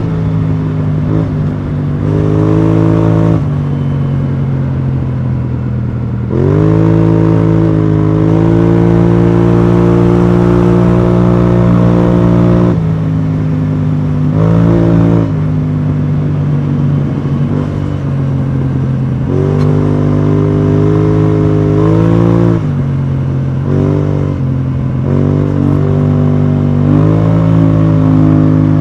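BMW C650GT maxi-scooter's parallel-twin engine through an Akrapovic exhaust, ridden on the road. The exhaust note rises and falls as the rider accelerates and rolls off the throttle: a sharp rise about six seconds in is held steady for several seconds, then drops away, and shorter pulls and roll-offs follow.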